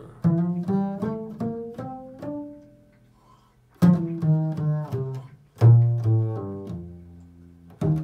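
Improvised solo on a plucked string instrument: quick runs of single notes, each struck sharply and left to ring and fade. The playing pauses briefly before the middle, then resumes, with a strong low note a little past halfway.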